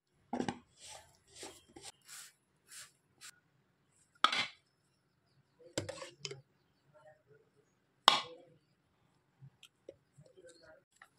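Kitchen clinks and knocks of a utensil against a bowl and containers as ghee is put into a bowl: a scatter of short taps, with three louder knocks about four, six and eight seconds in.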